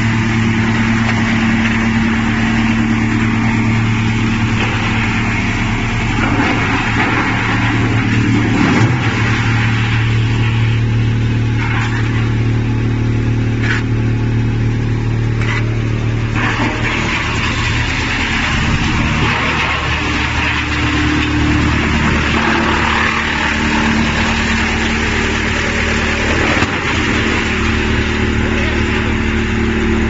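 Electric-motor-driven wood-processing machine running with a steady low hum and a rushing hiss, with a few short knocks near the middle.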